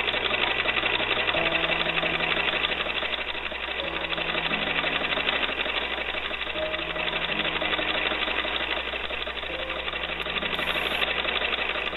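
1870 Florence Fancy Leg treadle sewing machine stitching steadily, with its tuck creaser attachment fitted: a fast, even mechanical clatter of the needle and feed.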